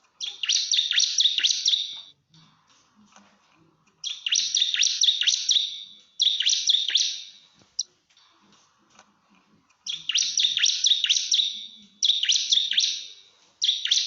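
Bar-winged prinia (ciblek) giving its rapid-fire 'nembak' song: about six loud bursts of quick, sharp high notes, each one to two seconds long with short pauses between. This is the challenge call used to summon rival birds.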